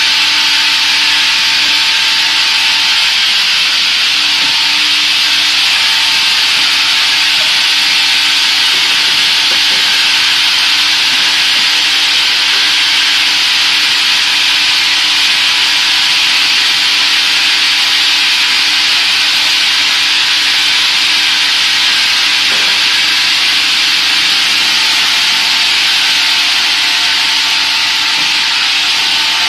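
Woodworking cross-cutting saw machine running and cutting through wood: a loud, steady sawing noise with a faint, even motor tone underneath.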